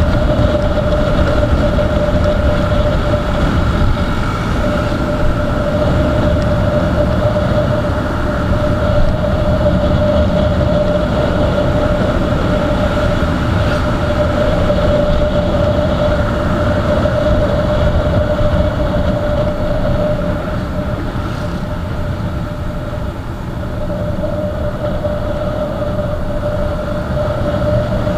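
Motorcycle cruising at a steady speed: a constant engine drone with wind rushing over the microphone.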